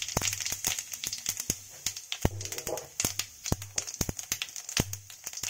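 Cumin seeds spluttering in hot oil in a kadhai: a steady sizzling hiss with many sharp, irregular pops, the tempering (jeera tadka) stage of frying.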